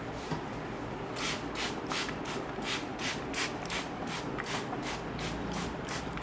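A barber's hands rubbing briskly over the scalp and hair during a head massage, in quick even strokes about three a second that start about a second in.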